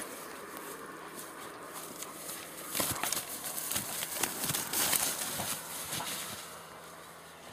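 A dog stirring and moving about, making irregular clicks and rustles that are busiest from about three to six seconds in and ease off near the end.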